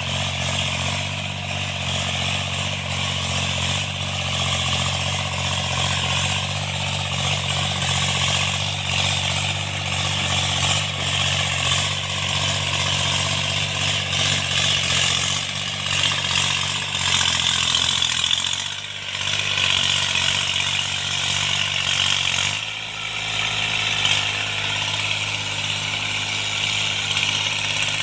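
Tractor engine running steadily while cultivating. A little past three-quarters of the way through, its note shifts.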